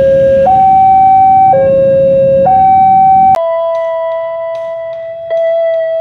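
Railway level-crossing warning alarm, an electronic two-tone siren switching between a low and a high tone about once a second. It cuts off abruptly a little over halfway through and is followed by outro music with held notes.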